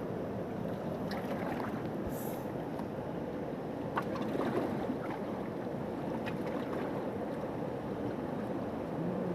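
Steady rushing of river water flowing over rocks, with a few light rustles and clicks from large leaves being handled close by.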